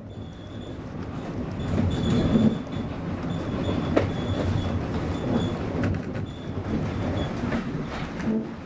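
Ride noise inside a moving railway carriage: the wheels rumble steadily along the track, with sharp clicks as they cross rail joints, the clearest about four seconds in, and a faint high squeal that comes and goes.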